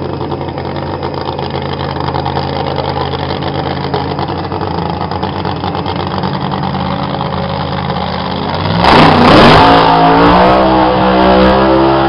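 Drag racing car's engine running steadily at the starting line. About nine seconds in it goes to full throttle for the launch, suddenly much louder, and it stays loud as the car pulls away down the strip.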